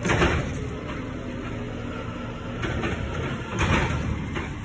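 Garbage truck running in the street: a steady low engine rumble, with two short bursts of hissing noise, one at the start and one near the end.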